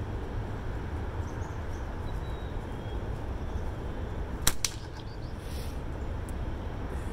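Magpie Hunter Light slingshot fired once: a sharp snap of the flat bands on release about four and a half seconds in, followed a fraction of a second later by a second click. A steady low outdoor rumble lies underneath.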